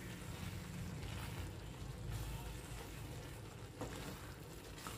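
Wooden spatula stirring a thick potato-capsicum masala gravy in a metal pan, with a few faint soft scrapes over a steady low hum.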